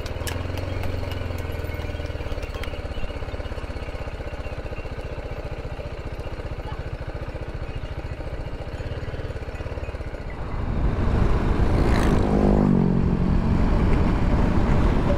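BMW G310GS single-cylinder motorcycle engine running while riding, a steady low drone. About ten seconds in it grows louder, with a brief shift in pitch a couple of seconds later.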